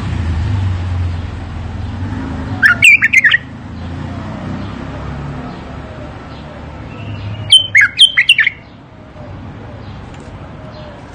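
Bulbul song: two short bursts of quick, rich fluting notes, the first about a quarter of the way in and the second a little past the middle, over a low steady rumble.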